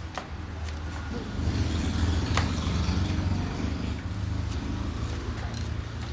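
Low engine rumble that swells about a second in and fades toward the end, with a couple of faint clicks over a steady low hum.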